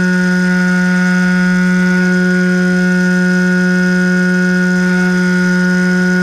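Electric motor and propeller of a foam FPV plane droning at one steady pitch at cruise throttle, heard through the onboard camera's microphone, with a faint low rush of wind.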